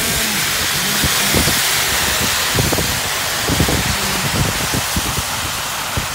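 Car driving on a rain-soaked, flooded road, heard from inside: a steady hiss of tyres and water spray, with irregular low thumps underneath.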